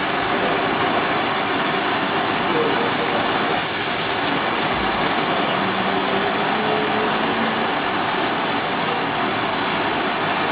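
Gas bench torch used for glassblowing burning with a steady rushing hiss of the flame.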